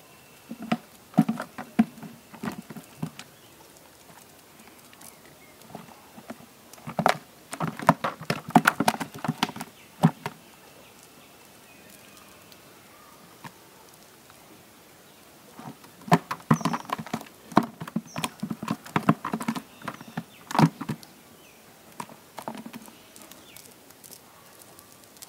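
Live fish flapping and splashing in a red plastic bucket of shallow water, in three spells of rapid slaps and knocks with quiet gaps between.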